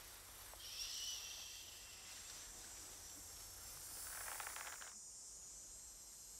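Faint, hushed sound: a soft rustle about a second in, then a faint creaking around four seconds in as a bow is drawn. After that the sound drops away almost completely.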